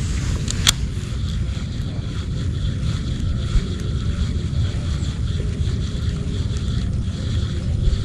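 Wind buffeting the microphone outdoors, a steady low rumble, with one sharp click less than a second in.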